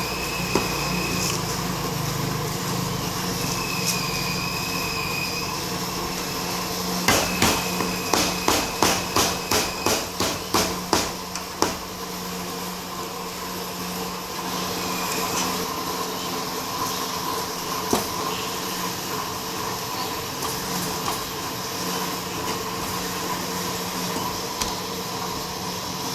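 Steel meat cleaver chopping roast meat on a thick round wooden chopping block: a quick run of about fourteen chops, roughly three a second, starting about a quarter of the way in.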